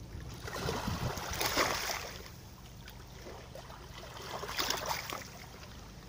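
Small waves lapping onto a sandy, pebbly shore, washing in twice: once about a second in and again near the five-second mark.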